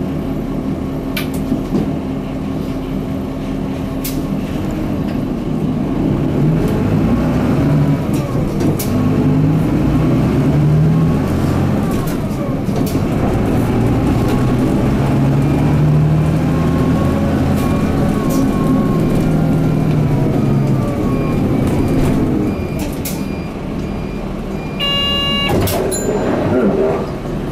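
Interior sound of a Mitsubishi Fuso Aero Midi MK bus's 6M61 six-cylinder diesel with a five-speed manual gearbox: idling at first, then pulling away and accelerating, the engine note rising and dropping with each gear change. A brief electronic tone sounds near the end.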